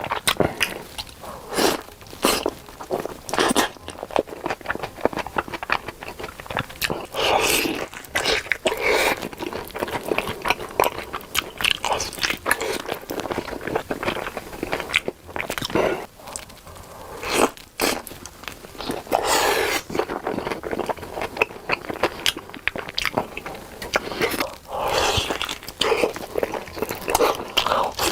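Close-miked eating of sausages: repeated crisp bites that snap through the casing, with chewing in between.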